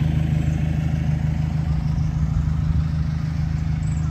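Small toy-train locomotive engine idling steadily with a low, even hum.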